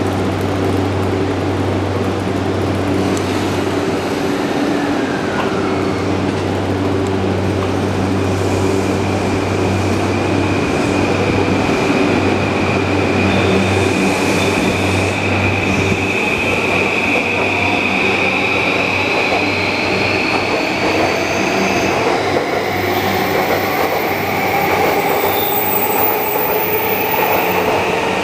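JR Yamanote Line E235-series electric commuter train pulling out and gathering speed. A steady low motor hum and rail running noise sit under a high whine that starts several seconds in and slowly rises in pitch as the train accelerates.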